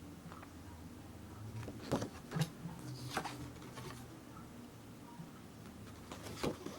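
Paper pages of a CD album's photo booklet being handled and turned: a few short rustles and taps, clustered two to three seconds in, with one more near the end.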